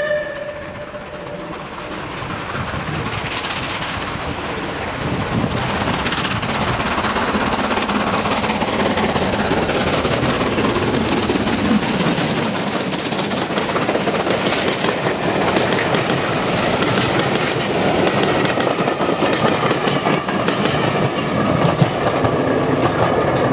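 Rebuilt Bulleid Battle of Britain class Pacific steam locomotive no. 34059 working a train: it approaches, and its exhaust grows louder until it passes close by about halfway through. After that, the coaches' wheels click over the rail joints as the train runs past and away.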